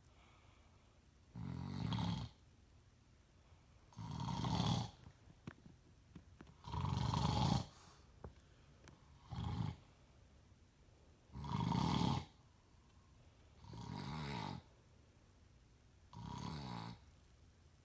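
A man snoring steadily in his sleep: seven snores, one about every two and a half seconds, each under a second long, with quiet between them.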